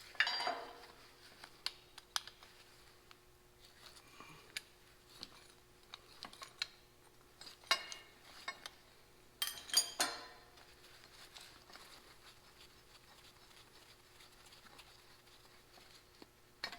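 Metal tractor parts and hand tools clinking and clattering as they are handled. There are scattered light clicks and a few louder clanks that ring briefly: one right at the start, one about eight seconds in, and a pair about ten seconds in.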